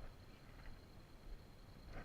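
Near silence: a faint low background rumble.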